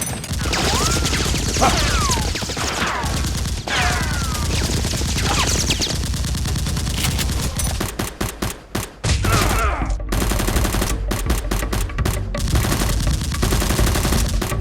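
Gunfire sound effects: scattered shots with sliding whistling sounds in the first half, then dense bursts of rapid automatic fire from about seven seconds in.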